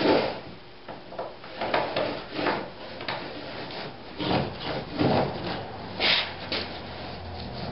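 Small wooden marking block with a pencil set in it, rubbed and scraped along the edge of a wooden sheet panel in short, uneven strokes to scribe a line.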